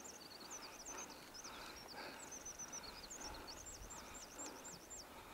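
Small bird twittering in a rapid series of high chirps that sweep up and down, over faint scuffing steps on stony ground.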